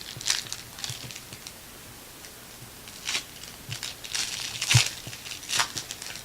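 Trading-card pack wrapper being torn open and crinkled by hand, with the cards inside rustling. The crackling comes in irregular bursts, quieter for a second or so in the middle and loudest about three-quarters of the way in.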